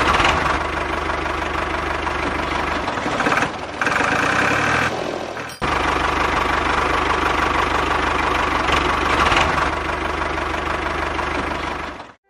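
A small motor running steadily, with abrupt cuts between segments. The tone changes for a couple of seconds in the middle.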